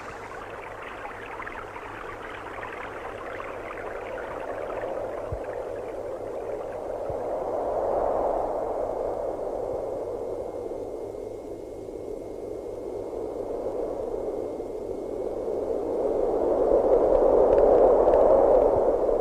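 A rushing, tuneless noise that swells and fades twice, first about eight seconds in and then louder near the end.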